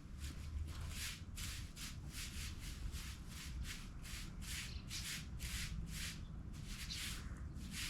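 Broom sweeping in a steady rhythm of swishing strokes, about two to three a second, over a low rumble.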